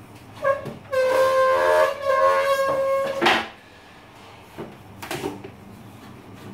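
Pine folding armchair squeaking with a long, high-pitched squeal as it is tipped over, then a loud wooden knock as it comes down on the floor, followed by a few lighter knocks.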